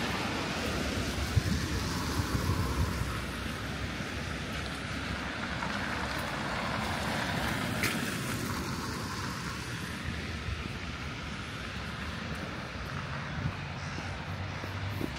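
City street ambience: traffic passing, with a steady hiss of tyre noise that swells and fades. There is one short click about eight seconds in.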